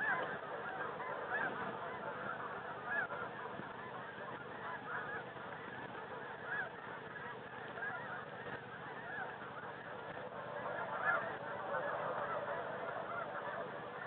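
A flock of snow geese calling together: a steady chorus of many short, high, overlapping honks that grows fuller about eleven seconds in.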